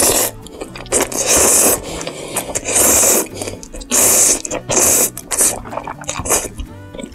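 Ramyun noodles being slurped up from chopsticks. It is a series of about six loud, hissy slurps, each under a second long.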